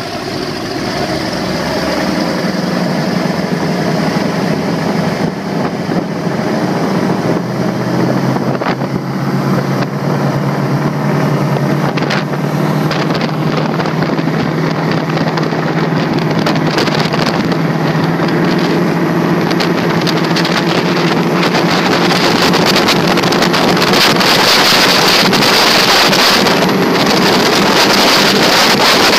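A 36-foot Skater catamaran powerboat's engines droning steadily at high speed, with wind and water rushing past the open cockpit. The sound grows steadily louder through the run as the wind rush builds.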